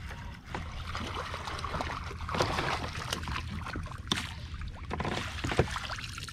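A hooked bass thrashing and splashing at the surface of the pond beside the kayak, with several sharp splashes, then scooped into a landing net with water spraying and dripping off it near the end.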